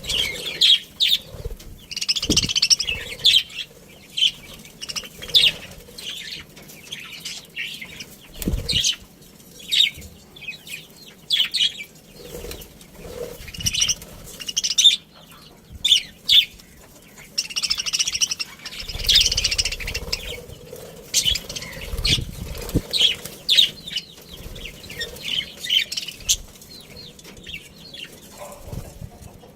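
A flock of budgerigars chirping and chattering in quick, high-pitched bursts, with wings fluttering now and then.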